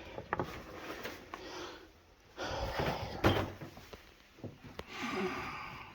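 Clicks and rustling of hands swapping the HT lead on the Morris Minor's number 3 cylinder, with a sharp click about halfway through.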